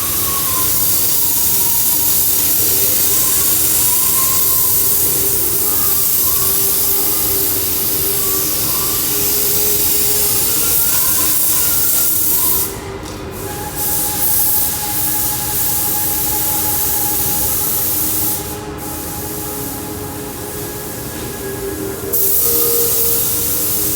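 Hot-air plastic welding gun blowing with a steady hiss. The hiss eases off briefly about halfway through, then again for a few seconds near the end before coming back at full strength.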